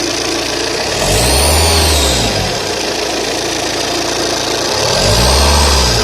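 Saab 9-3 TTiD's 1.9-litre twin-turbo diesel engine revved up and back down twice, about a second in and again near the end, running steadily in between. A high whine rises and falls with each rev: the noise on acceleration that the owner is showing.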